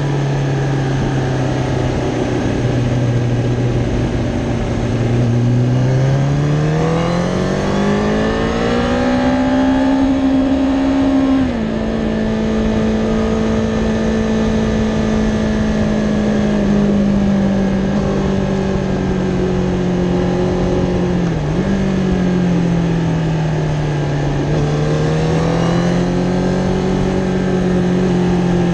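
Kawasaki Ninja ZX-10R's inline-four engine under riding on a race track. The revs climb for several seconds in second gear, then drop sharply on an upshift to third. They fall away as the bike slows, with a brief dip on a downshift back to second, and then rise again as it pulls out.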